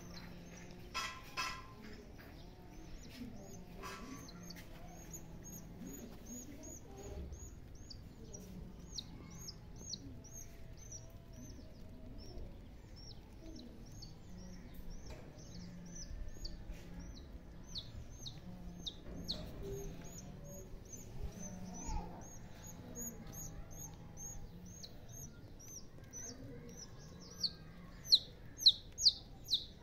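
A bird calling over and over, a steady run of short, high notes that each fall in pitch, a few a second, with the last few near the end much louder and closer.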